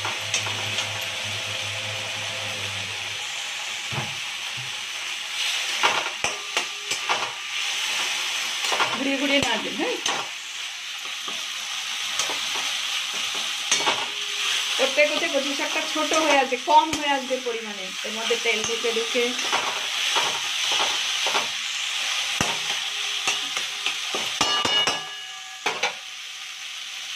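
Taro leaves and a hilsa fish head frying in a metal kadai, sizzling steadily while a metal spatula stirs them round, scraping and knocking against the pan.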